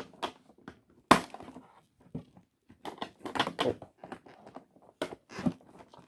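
Scissors cutting into a cardboard toy box, with crackling and rustling of the packaging in short irregular bursts and one sharp knock about a second in.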